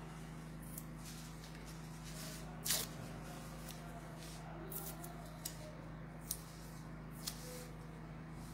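Quiet room with a steady low electrical hum and a few short clicks and rustles, the loudest about three seconds in.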